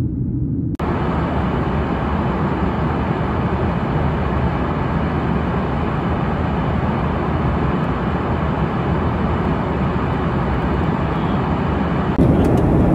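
Jet airliner cabin noise in flight: a steady rushing noise of engines and airflow. It cuts in abruptly just under a second in, replacing a lower rumble, and changes again near the end.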